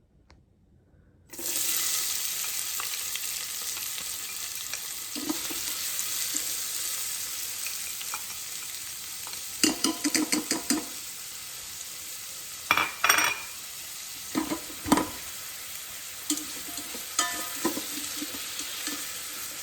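Chopped leeks and onion hit hot olive oil in an Instant Pot's inner pot and start sizzling suddenly about a second in. The sizzle then runs steadily, broken several times by clusters of clatters as a utensil stirs the vegetables against the pot.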